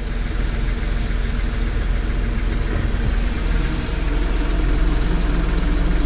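Tractor's diesel engine running steadily, heard from inside the cab, fading in over the first second.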